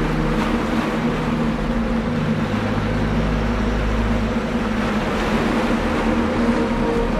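Waves breaking and washing up a pebble shore, a steady rushing noise, with a steady low humming drone running under it.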